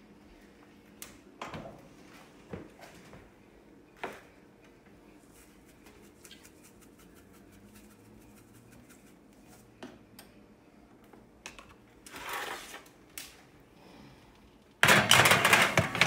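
A few light clicks and knocks of a metal baking sheet being handled, then, about fifteen seconds in, a loud scraping, rattling clatter of the sheet pan being pushed onto the wire rack of the gas oven.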